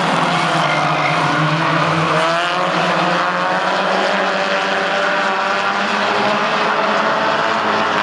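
Race car engines running at speed on an oval track, several overlapping engine notes rising and falling as the cars accelerate and lift.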